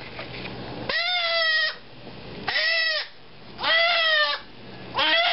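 Goat kid bleating loudly four times, each cry about half a second long and rising then falling in pitch, as a hot disbudding iron burns its horn bud.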